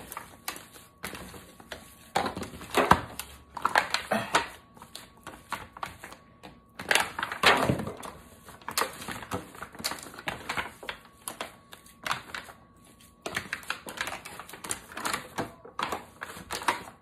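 Hands squeezing and kneading raw ground-beef meatloaf mix in a disposable aluminium foil pan: irregular wet squishing with rapid crinkling clicks of the thin foil, coming in uneven clusters.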